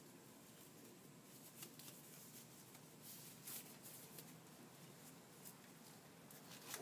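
Faint rustling of disposable exam gloves being pulled on and adjusted over the hands, with a few small snaps, over near-silent room tone.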